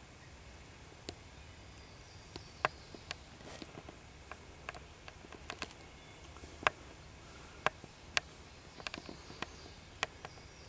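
Irregular crackling and clicking of dry leaf litter as wild turkeys walk and scratch through it while foraging.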